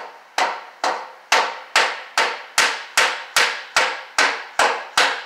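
Rubber mallet striking a fitting over and over, about two and a half blows a second in a steady rhythm, driving the fitting into the end of a PEX pipe before it is crimped.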